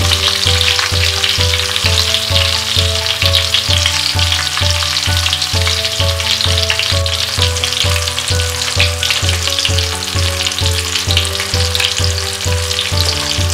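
Eggplants and potato pieces shallow-frying in hot oil in a karahi over medium-to-high heat: a steady sizzle with crackling spatter as they crisp. Background music with a steady bass beat plays underneath.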